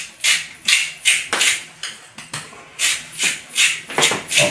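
Salt mill twisted by hand: a steady run of gritty grinding rasps, roughly two or three a second.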